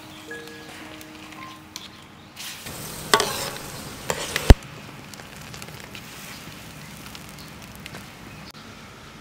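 Sauce sizzling and bubbling in a wok over a wood fire, with a metal ladle stirring and scraping in it. About three seconds in the stirring grows louder, and a sharp clink of the ladle against the wok comes about a second and a half later.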